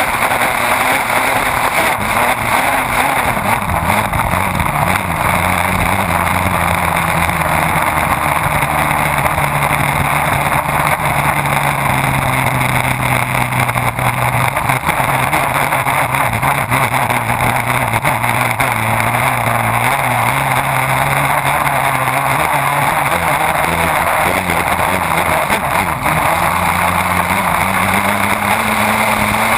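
Race boat's engine running hard at racing speed, close up, over the heavy rush of spray and water thrown up behind the boat. The engine note sags a little through the middle and climbs again near the end.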